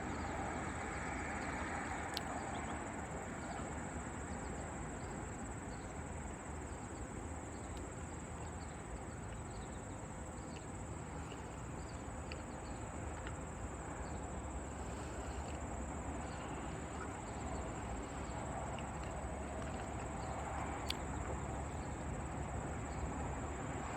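Insects chirring in a steady high continuous trill, over a low, even outdoor background noise.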